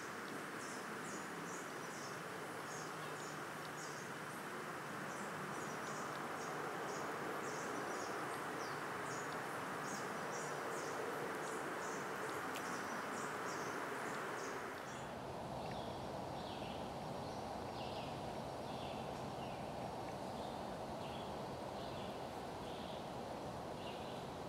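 Outdoor insect ambience: many short, quickly repeated high chirps over a steady hiss. About two-thirds of the way through the sound changes abruptly, and the chirps come lower in pitch.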